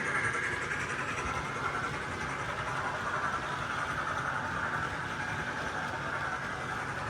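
Model BR 9F steam locomotive running at speed round the layout with a long rake of open wagons. It makes a steady rumble of wheels on the track, with a higher whine that slowly drifts up and down in pitch.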